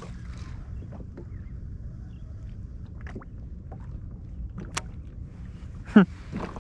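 Steady low rumble of wind and water around a personal watercraft at rest on the water, with a few light knocks. A short, loud vocal sound comes about six seconds in.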